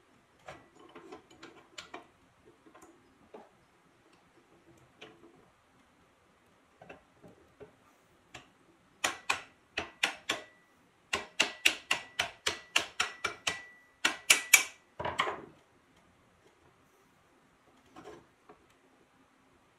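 Metal parts of a cast-iron drill press head clicking and tapping as they are worked by hand: scattered light clicks, then a quick run of loud sharp clicks through the middle, several with a brief high metallic ring, and a couple more near the end.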